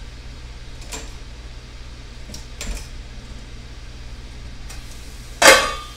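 A low steady hum with a few faint handling clicks, then, about five and a half seconds in, a sudden loud metallic clatter as the lid comes off a covered frying pan.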